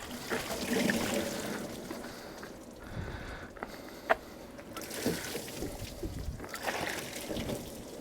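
Water splashing and trickling in irregular pours, rinsing cleaner off engine parts, with a sharp click about four seconds in.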